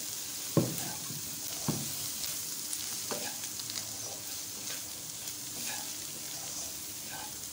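Shredded boiled chicken with green chillies and ground spices sizzling gently over low heat in a frying pan while a spatula stirs and scrapes through it. There are two sharp knocks of the spatula on the pan, about half a second in and again near two seconds, and lighter scrapes and ticks after that.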